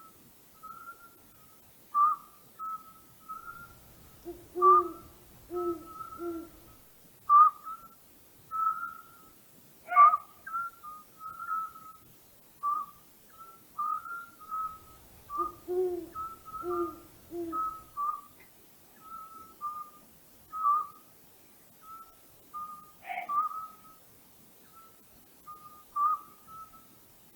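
Night ambience with an owl hooting: two short runs of three or four low hoots, about 5 s and 16 s in, over frequent short, high whistled calls.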